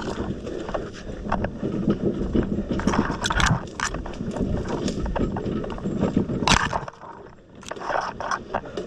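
Wheelbarrow being pushed over rough ground, rattling and knocking unevenly, with footsteps. A few sharp clanks stand out, and it goes quieter for a moment near the end.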